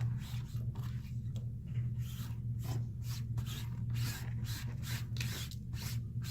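Short scratchy rubbing and scraping strokes, about two a second, as pieces of an old phone screen are handled and cleared away, over a steady low hum.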